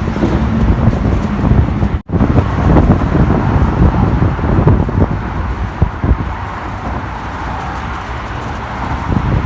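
Loud, gusty low rumble of wind buffeting the microphone, mixed with road traffic noise from the bridge. The sound cuts out for an instant about two seconds in.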